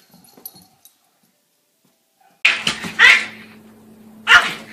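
A dog barking: three short, sharp barks starting about two and a half seconds in, over a low steady hum.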